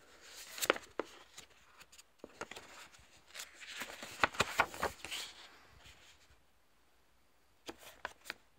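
Paper pages of a small booklet being handled and turned, rustling and crackling with sharp crisp snaps; after a quiet moment, three short clicks of paper near the end.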